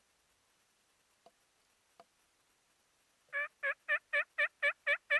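A run of about eight turkey yelps at an even pace of about four a second, beginning a little over three seconds in. Two faint clicks come before it.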